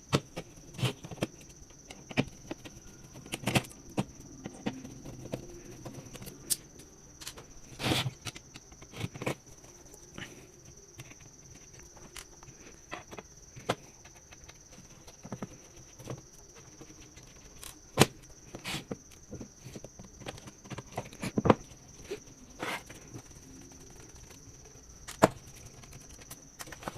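Scattered clicks, taps and small knocks of a screwdriver, screws and hard parts as the circuit board of a Dahua 8-channel XVR is unscrewed and lifted out of its case. A steady faint high-pitched tone runs underneath.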